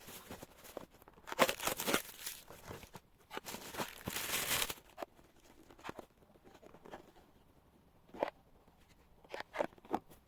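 Packaging being torn open and crinkled by hand: two longer ripping, rustling stretches about a second in and again around three to four seconds in, then a few light rustles and taps near the end.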